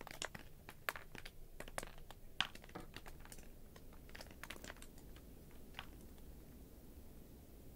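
Faint, irregular sharp clicks and ticks, several a second, that die away about six seconds in, leaving a faint steady hiss.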